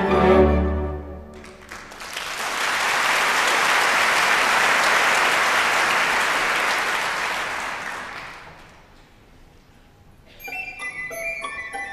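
Theatre audience applauding for about six seconds after an orchestra's final chord dies away; the applause fades out. Near the end, a new orchestral passage begins with quick, high, bell-like notes.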